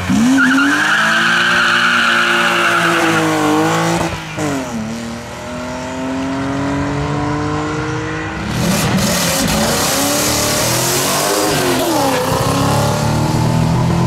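BMW 3 Series Compact race car launching hard from the start line with tyres squealing in wheelspin, its engine revving up and shifting about four seconds in, then climbing again. From about eight and a half seconds, a second race car, an Audi quattro, is heard at full throttle, with its engine note dipping at each gear change.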